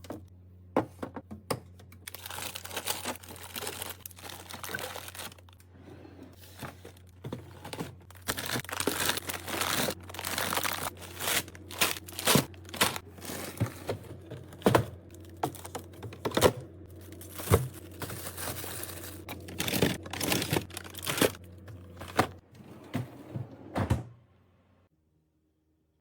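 Plastic grocery packaging crinkling and tearing, with many clicks and knocks of items being handled and set down, over a steady low hum. It all stops a couple of seconds before the end.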